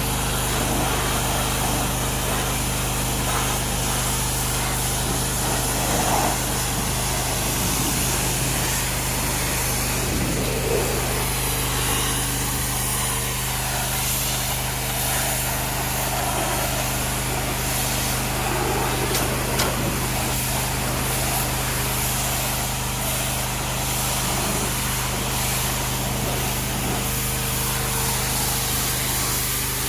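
Pressure washer running steadily, its motor droning with a hiss of water spray over it.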